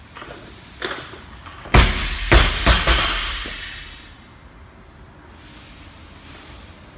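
Loaded 225-lb barbell landing on the lifting platform after a clean pull: a heavy thud, then three quick bounces with clanking plates, the metal rattle dying away over about a second. Lighter knocks and clinks come before it as the bar leaves the floor.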